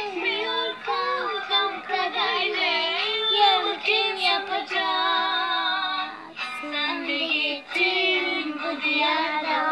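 A young girl singing a song, with long held notes that slide in pitch.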